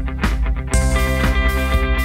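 Background rock music with a steady beat, about four strikes a second. It swells fuller with a crash and sustained chords about three quarters of a second in.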